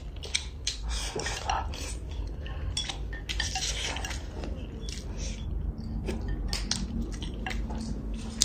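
Wooden chopsticks clicking and scraping against a porcelain bowl in irregular light taps as someone eats from it.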